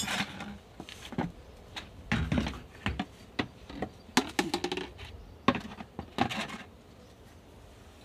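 Irregular knocks, clinks and scrapes as an emptied plastic gear-oil bottle is handled and set down on a tiled floor. The sounds stop about two-thirds of the way through.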